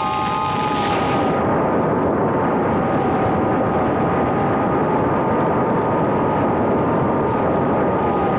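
FPV quadcopter in flight: its motors whine at a few steady, slightly wavering pitches under a loud rush of wind and propeller noise, which loses its hiss about a second in.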